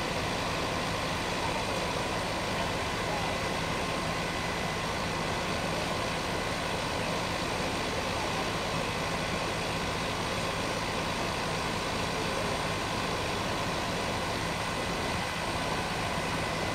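Steady engine drone of fire trucks running at the fire scene, even and unchanging throughout.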